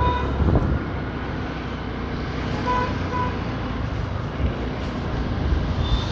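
Wind and road noise from riding a scooter along a busy city road, with a steady low rumble of passing traffic. Short beeps sound around the start and twice about three seconds in.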